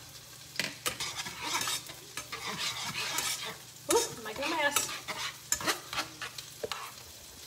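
Wire whisk stirring and clicking against a nonstick skillet, whisking beef broth into melted cream cheese for gravy, with a light sizzle underneath.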